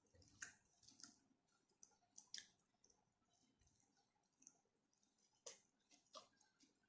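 Faint, close-miked eating sounds: scattered wet mouth clicks and smacks of chewing food, with the sharpest clicks about half a second, two and a half, five and a half and six seconds in.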